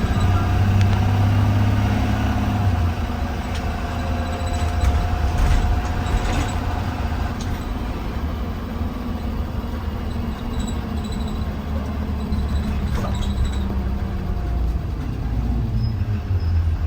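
2020 Blue Bird Vision school bus engine running, heard from inside the cabin: a steady low rumble with road and cabin noise, and faint rattles and clicks now and then.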